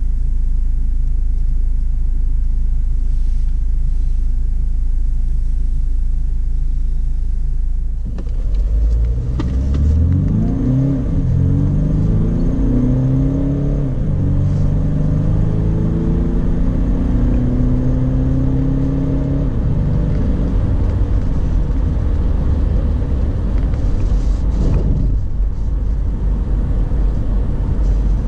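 Ford S-MAX diesel engine heard from inside the cabin: a steady low drone, then, about eight seconds in, the engine note rises under acceleration with short drops in pitch as the PowerShift dual-clutch automatic shifts up, settling into a steady cruising drone with road noise.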